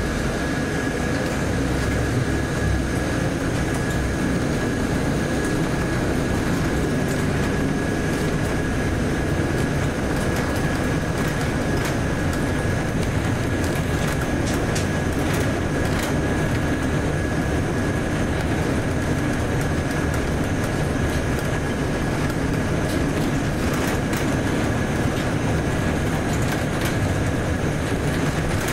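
Cabin sound of a Volvo B8RLE bus on the move: its six-cylinder diesel and road noise make a steady rumble, with a thin steady whine above it and a few faint rattling clicks.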